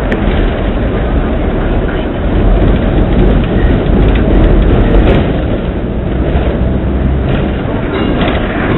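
Hong Kong double-decker tram running along its street track: a loud, continuous rumble of wheels and running gear, louder for a few seconds in the middle.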